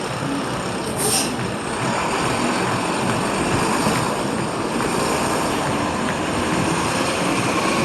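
Steady city traffic noise, with a short sharp hiss about a second in.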